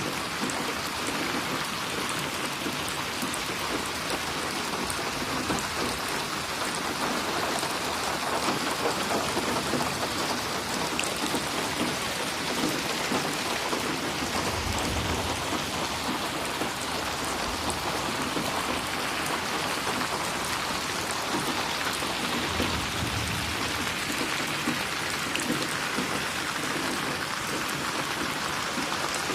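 Steady rain falling and splashing on a surface, a dense even hiss of drops. Two brief low rumbles swell under it, about halfway through and again a few seconds later.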